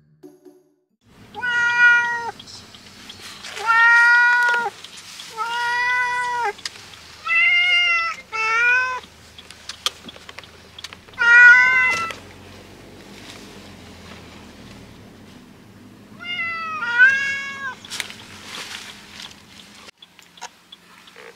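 Domestic cat meowing loudly in a soft carrier bag in a car, about eight long, drawn-out meows with pauses between them. It is the distress crying of a cat that hates car rides.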